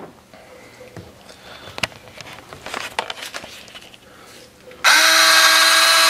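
Soft clicks and taps of handling, then about a second before the end a small electric power-mirror motor of a 1984 Cadillac Eldorado starts buzzing at a steady pitch, driving the freshly tightened mirror head.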